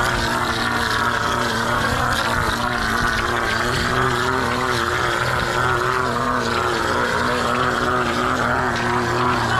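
Engine-driven plaster pump rig running steadily while wet pool plaster is sprayed through a hose nozzle, a constant drone with a faint hiss over it.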